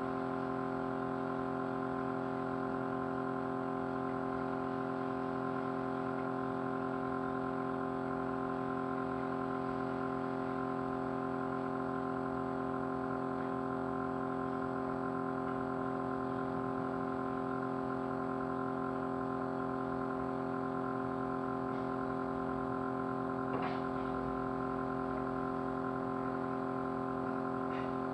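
Small motor running with a steady vibrating hum at an unchanging pitch, with one faint click about three-quarters of the way through.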